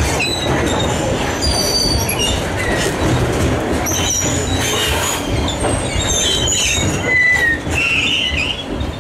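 Freight train of covered hopper wagons rolling past close by: a steady rumble of steel wheels on the rails, with short high-pitched wheel squeals at varying pitches coming and going.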